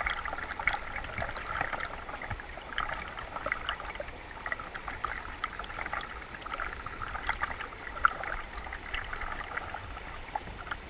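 Shallow mountain creek babbling over rocks: a steady rush of water dotted with many small splashes and trickles, with one brief sharper tick about eight seconds in.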